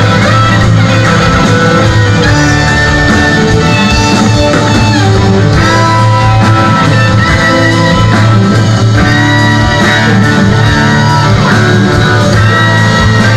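Live rock band playing an instrumental passage: electric guitars, bass guitar, drums and keyboards, with a violin among the sustained lead lines, at loud, steady concert volume.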